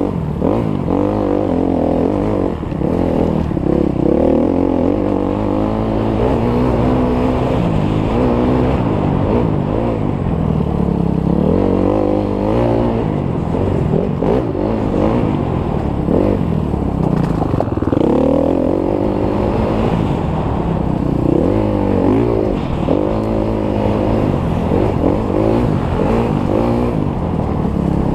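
Dirt bike engine being ridden hard on a trail, revving up and falling back over and over as the throttle is worked. The pitch swings every second or two.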